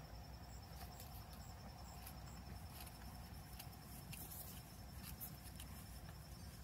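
Faint outdoor background: a steady low rumble with insects chirping in short, evenly repeating high notes, and a few soft scratchy rustles.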